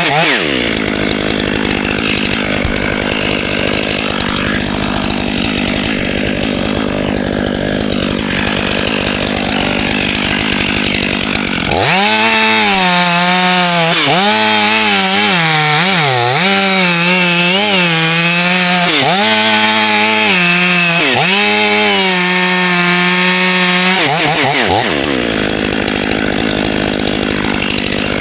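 A Stihl MS 500i two-stroke chainsaw drops to a rough idle, then about halfway through goes to full throttle for roughly twelve seconds, its pitch wavering as the chain bogs and recovers in a cut through the cherry wood. It then falls back to idle near the end.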